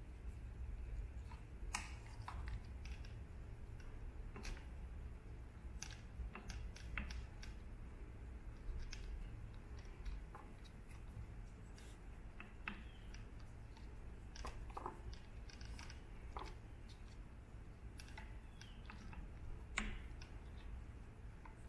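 Faint, scattered small clicks and light scrapes of a steel-tipped hand tool working under the thread stitches of a leather lever cover to tighten the lacing, over a steady low hum.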